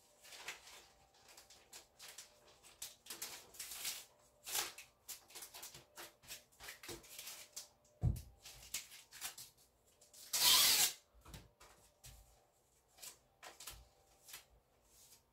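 Clear plastic bag crinkling and rustling as it is handled with a sheet of foam core board, in a run of short crackles. A light knock comes about eight seconds in, and a louder, longer rustle about ten and a half seconds in.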